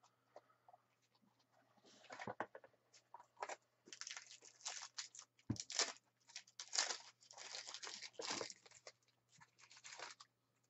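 Quiet, irregular crinkling and rustling of Match Attax trading cards and their foil pack wrappers being handled, starting about two seconds in.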